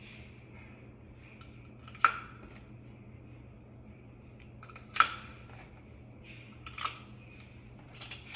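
Three sharp clicks a couple of seconds apart, made while handling the kitchen faucet's battery box as new batteries go in, over a faint steady hum.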